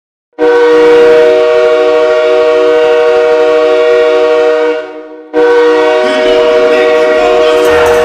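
Nathan Airchime IEC-Holden K3L three-chime air horn sounding a steady chord in two long blasts: the first of about four seconds, then a short break, then a second blast from about five seconds in. Music starts under the second blast.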